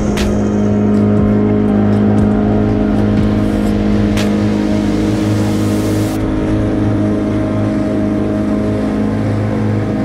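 Outboard motor on a small aluminium boat running at a steady speed under way. A sharp knock comes near the start and another about four seconds in, followed by a couple of seconds of hiss.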